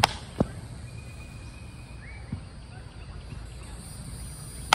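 Sharp slaps of plastic flying discs in play: two close together at the start, a softer one midway, and another at the end. A faint high bird chirp comes in the middle.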